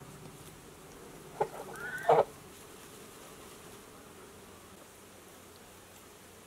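A chicken gives a short squawk about a second and a half in, then a louder pitched call that rises and falls about two seconds in, over a steady buzzing hum.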